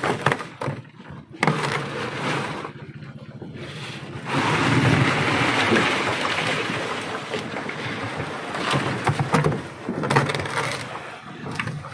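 Chunks of block ice tipped out of a plastic tub onto a tuna in a styrofoam fish box, icing the fish: a loud sliding rush starting about four seconds in and lasting about four seconds. Knocks of the plastic tub being handled come before and after it, over wind and sea noise.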